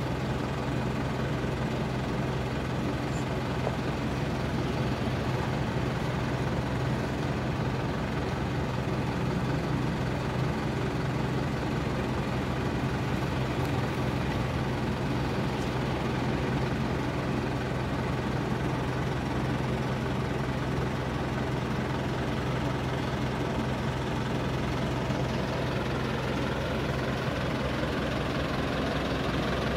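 A steady, unchanging mechanical hum of an idling engine.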